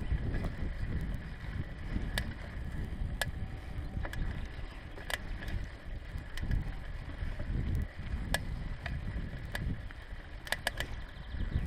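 Bicycle rolling over a bumpy grass path: an uneven low rumble of wind and jolting on the handlebar-mounted camera's microphone, with a few sharp clicks and rattles from the bike.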